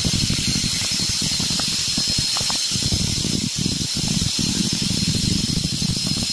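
DeWalt 20V cordless drill running as its bit bores drainage holes through the bottom of a plastic tote bin. It stops for a moment a few times around the middle.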